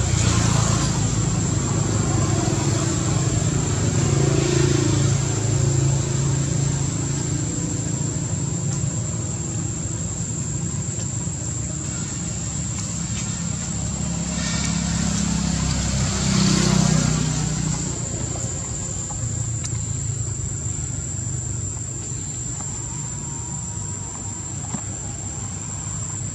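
Steady low hum of a motor vehicle engine, swelling about sixteen seconds in as if passing, with a thin high steady whine over it.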